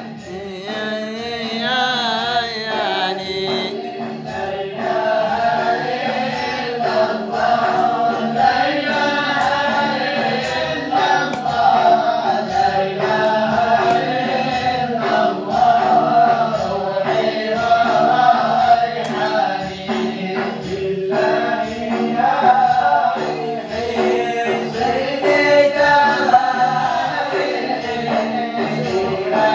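A group of voices singing a mawlid chant together, with a steady low beat under it.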